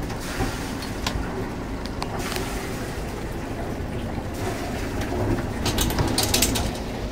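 Sailing yacht's inboard diesel engine running with a steady low rumble while manoeuvring into a berth. A few sharp clicks come early, and a quick rattle of clicks comes about six seconds in.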